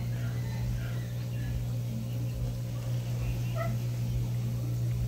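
Steady low hum of the aquarium air pump running to aerate the fry tank, with a few faint, short high calls from an animal.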